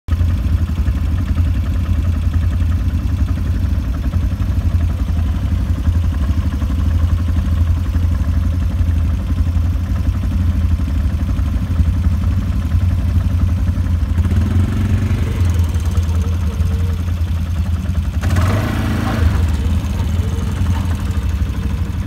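Quad bike (ATV) engine idling with a steady low hum.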